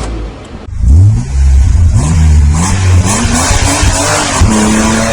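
Engine revving and accelerating, its pitch climbing in several steps and then holding steady, under a loud rushing noise.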